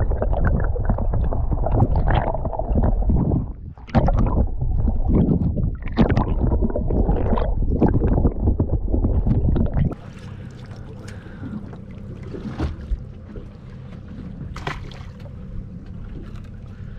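Wind and water noise on an open boat, loud and buffeting on the microphone for about ten seconds. It then drops suddenly to a much quieter, steady low hum.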